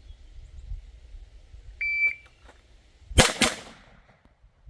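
A shot-timer app's start beep, followed a little over a second later by two pistol shots fired in quick succession, about a quarter second apart, with a short echo after them.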